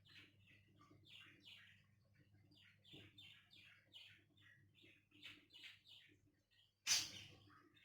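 Faint small birds chirping in quick, repeated short notes over a steady low hum, with one short loud noise about seven seconds in.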